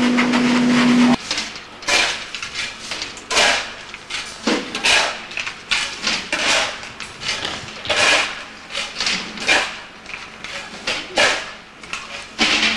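Construction hammering: irregular sharp blows, roughly one a second. Before them, a loud steady hissing noise with a low hum cuts off suddenly about a second in.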